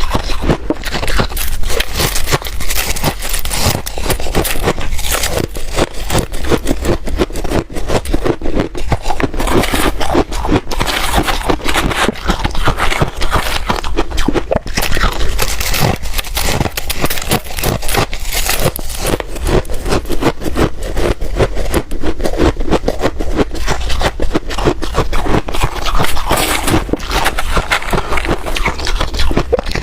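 Ice being bitten and chewed close to the microphone: a dense, continuous stream of sharp cracks and crunches.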